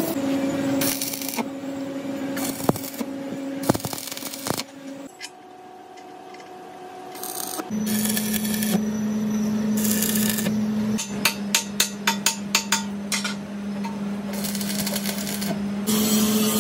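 Stick welding on a steel housing: the arc crackles and hisses in patches over a steady hum from the welding machine, with a quick run of sharp taps about two-thirds of the way through.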